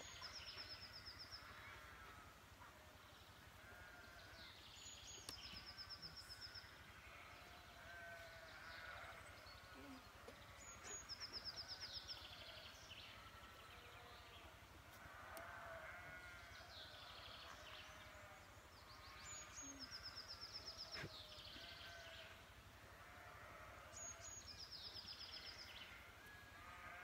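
Faint outdoor birdsong: a songbird repeats a short phrase, a dropping note followed by a fast, even high trill, about every five seconds. Many fainter, overlapping bird or animal calls are heard behind it.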